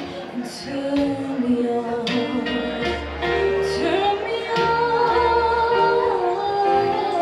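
A woman singing karaoke into a handheld microphone, holding and sliding between notes over a backing track with steady bass notes.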